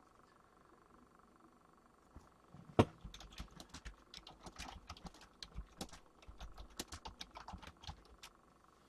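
Typing on a keyboard: after a quiet start, a quick, uneven run of key clicks begins about three seconds in with one louder knock, and stops shortly before the end.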